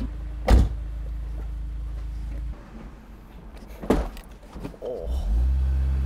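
A lowered Honda S2000 on new coilovers bottoming out over a bump: two sharp thumps about three seconds apart over the low hum of the engine. The hum drops back after a couple of seconds and picks up again near the end.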